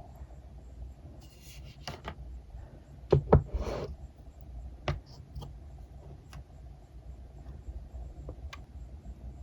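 Squishy toys being handled: scattered light taps and clicks, with two sharp knocks followed by a brief rustle about three seconds in.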